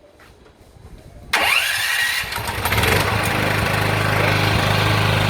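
Firman SPG8600E2 7.5 kVA generator started by remote: after about a second of quiet the electric starter cranks with a rising whine, the engine catches almost at once and settles into a steady, even run.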